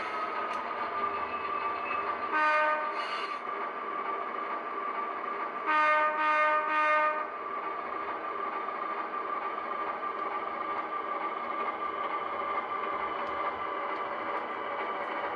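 HO scale model diesel locomotive's sound decoder playing a steady prime-mover run through its small speaker. It sounds two short horn blasts a couple of seconds in, then three short blasts a few seconds later.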